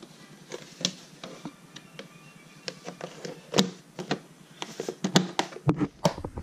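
Irregular light clicks and knocks of a glass terrarium, its black plastic frame and a plastic tub being handled, with sharper knocks about three and a half and five seconds in.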